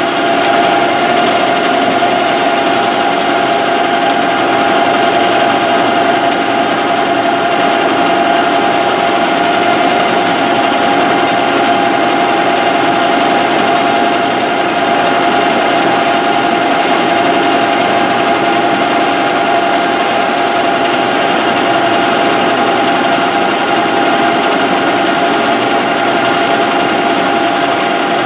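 Metal lathe running steadily while a carbide insert tool takes a roughing cut along a metal shaft: a constant machine whine with one strong clear tone over a hum and the hiss of cutting.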